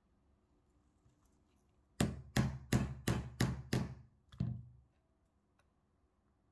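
Small hammer tapping a slotted steel roll pin into the base of a CZ Bren 2 folding charging handle. Seven quick, sharp strikes about three a second, starting about two seconds in, the last after a slightly longer gap.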